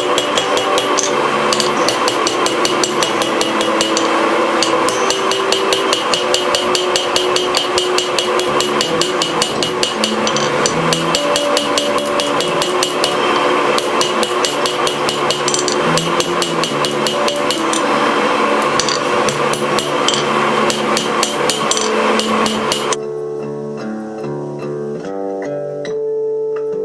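Hand hammer striking leaf-spring steel on an anvil while forging a knife blade: rapid, steady blows that stop about 23 seconds in. Guitar music plays underneath.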